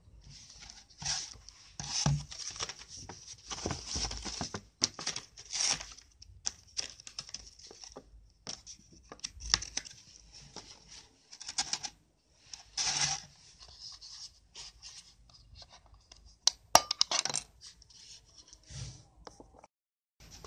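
Clear plastic blister packaging crinkling and rustling in stop-start bursts as it is handled, with scrapes and clicks from the plastic being moved about and a sharp tap near the end.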